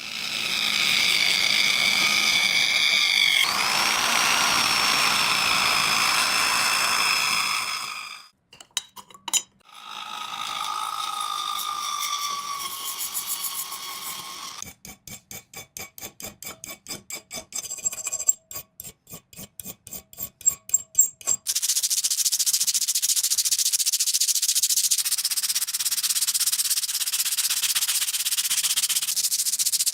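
Workshop sounds of metal restoration in quick succession. A power tool grinds steadily with a whine for about eight seconds, followed by a few clicks and more grinding. Then come fast rhythmic scraping strokes, about four a second, and near the end a steady abrasive hiss of sanding.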